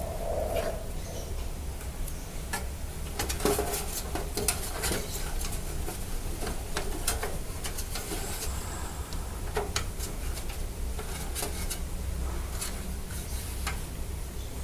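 Spare power-supply cables being handled and tucked into a computer case: irregular clicks, taps and rubbing of plastic connectors and wires against the metal case, over a low hum.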